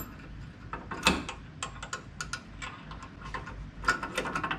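Small metal clicks and taps as a nut and washer are started by hand on a truck's shock extension bolt, a few apart at first and a quicker cluster near the end.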